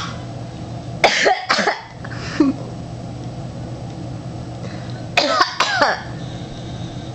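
Coughing in two short bouts: two quick coughs about a second in, then three more about five seconds in.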